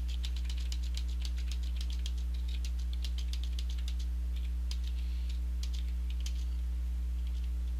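Computer keyboard keys clicking as the alphabet is typed, in quick runs that thin out in the second half, over a steady low hum.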